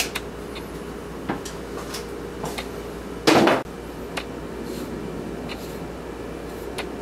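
Light clicks and scrapes of a knife and spoon working avocado halves as the pits are taken out and the flesh is scooped, with one louder knock about three seconds in.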